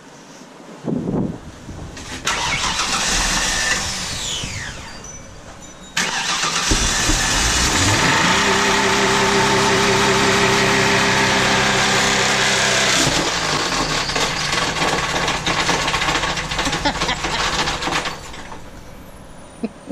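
A Ford Taurus engine with a knocking bottom end is revved hard and held at high revs for several seconds. This is followed by a loud metallic clatter and banging as it comes apart. The engine has blown, a connecting rod breaking out through the oil pan, and the clatter dies down near the end.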